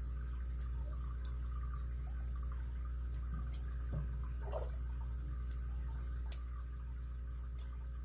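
Lock pick and tension wrench working the pin stack of an all-brass Yale 7-pin padlock: small, sharp metallic clicks, a handful at irregular intervals, the clearest a little past six seconds in. A steady low hum runs underneath.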